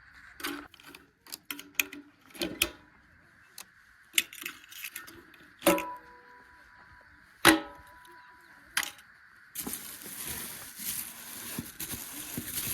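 A series of sharp knocks and clanks, two louder ones ringing metallically, then a rushing noise starting near the end.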